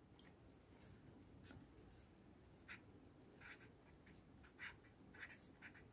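Marker pen writing on paper: faint short scratchy strokes of the pen tip, beginning about halfway through and coming several a second.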